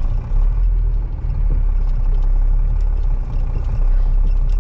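Truck engine running steadily with a low drone, heard from inside the cab as the truck pulls away.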